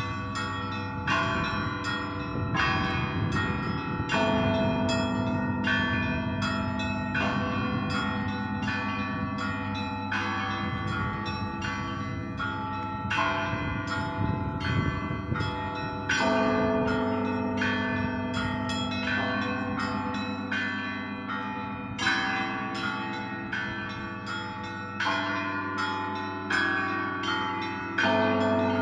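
Russian Orthodox monastery bells ringing together in a peal: small bells struck in quick succession over the long, deep hum of a large bell, with a heavier stroke every several seconds.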